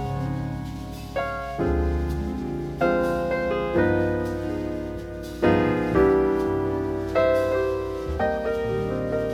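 Slow jazz piano: chords struck roughly once a second and left to ring and fade, over low bass notes.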